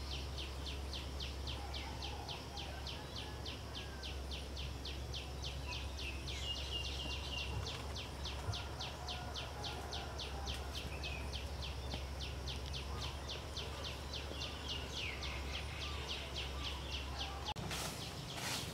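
Forest ambience: a steady train of high chirps, about four to five a second, with a few short bird calls over a low steady hum. Near the end the sound cuts, and a short rustle follows.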